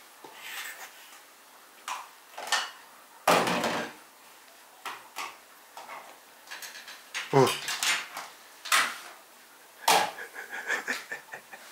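Small wooden toy blocks clacking and knocking against each other as they are handled and stacked into a tower, in separate sharp knocks every second or two, the loudest a heavier thump about three seconds in.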